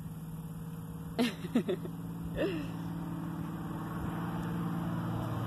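A motor hums steadily at a low, even pitch, slowly getting louder.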